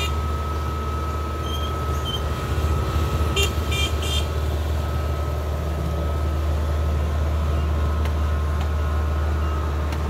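Kubota DC70 combine harvester's diesel engine running steadily as the machine reverses, with a steady high whine over the low engine hum. A few short beeps sound about three and a half seconds in.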